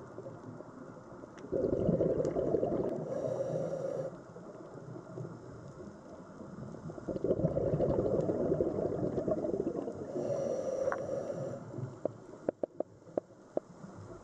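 A scuba diver breathing underwater: two long rushes of exhaled bubbles about six seconds apart, each with a short regulator hiss near its end. A few sharp clicks follow near the end.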